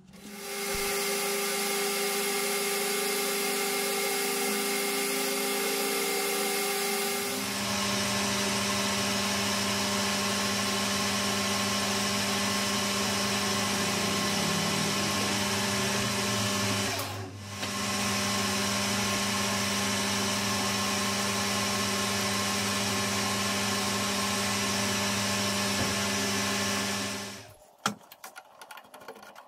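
Metal lathe running with a steady whine from its motor and gears, the spindle turning a small metal part. The sound changes pitch and gets fuller about seven seconds in, dips briefly past the middle, and stops shortly before the end.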